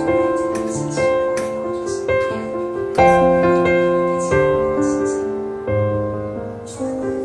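Background instrumental music: a slow melody of struck notes that fade out, over held chords.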